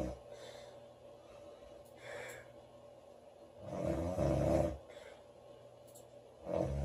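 A woman snoring in her sleep: the tail of one snore at the start, a softer breath about two seconds in, a loud snore about four seconds in, and the next snore starting near the end, at about one every three seconds.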